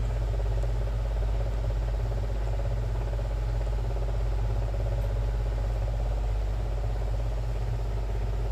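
Steady low mechanical hum, even throughout, with a rumbling low end.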